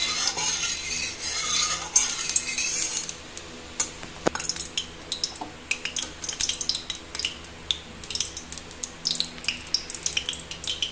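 A flat metal spatula scraping and stirring around a steel kadai of heating oil, densest for the first three seconds. Scattered crackles from the oil follow as it warms up.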